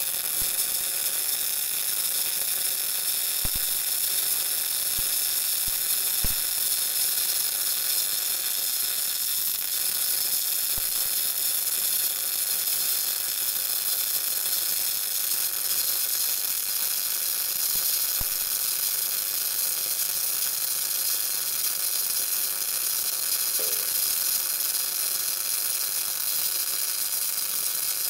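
MIG welding arc burning continuously with a steady hiss, striking up right at the start, as one long weld bead is run around the joint between a steel wheel centre and a tractor rim.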